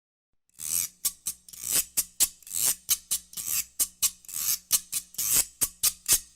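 Hand percussion played in an uneven rhythm of rasping, hissy swishes and sharper clicks, about three to four strokes a second, starting after a brief silence.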